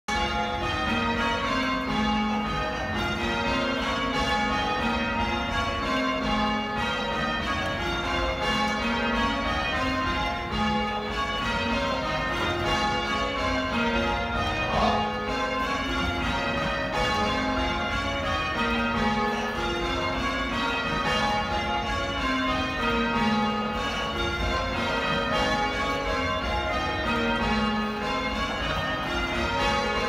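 Church bells change-rung by hand from their ropes in a quarter peal: a steady, unbroken stream of bell strokes, each bell sounding in turn.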